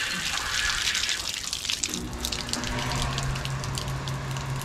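Water rushing out of an opened outdoor hose bib as the house plumbing is drained after the main supply is shut off, splashing onto the ground. About two seconds in the rush thins, and a low steady hum comes in under it.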